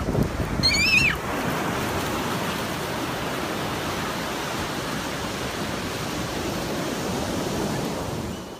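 Ocean surf breaking and washing up a beach, a steady rushing noise. About a second in, a brief high-pitched squeal of a voice rises and falls over it.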